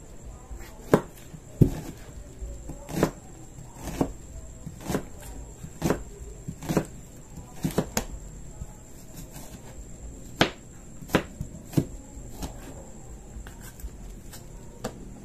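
Knife chopping vegetables on a cutting board: uneven knocks, roughly one a second, some sharper and louder than others.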